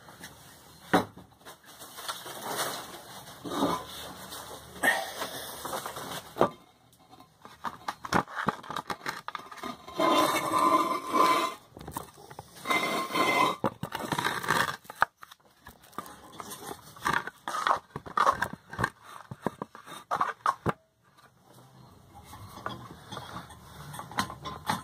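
Irregular handling noise: scraping, rustling and clicking of objects being moved about, louder and busier around the middle.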